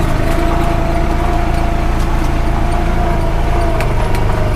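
2021 Honda Pioneer 520 side-by-side running steadily as it drives, with an even hum and a steady whine over it. A few short knocks or clicks are heard, two of them close together near the end.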